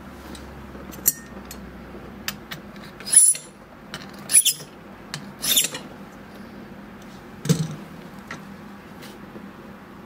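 Brass key blank in an impressioning handle being worked in a Master Lock No. 1 padlock, so the pins bind on the blank and leave impression marks. Scattered light metal clicks, three short scraping rasps between about three and six seconds in, and a single heavier knock about seven and a half seconds in.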